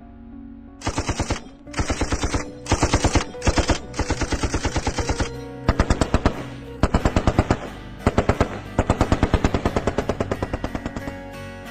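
Automatic rifle fire in repeated bursts, about ten rounds a second, starting about a second in, with short gaps between bursts. A music score plays underneath.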